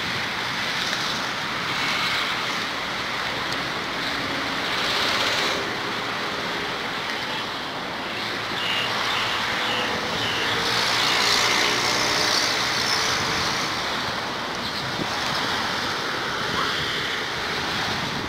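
Steady road-traffic noise, swelling and fading as vehicles pass.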